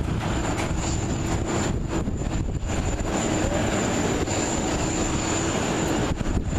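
Jet airliner engines running loud at close range: a steady, dense rushing noise with a thin high whine held throughout.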